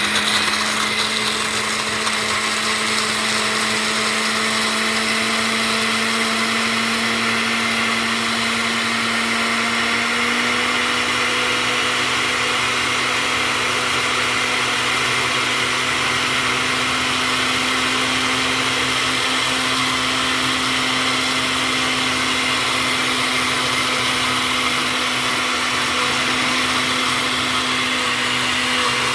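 Countertop blender running at high speed, grinding a mix of nuts. It runs steadily, and the motor's pitch rises slightly about ten seconds in.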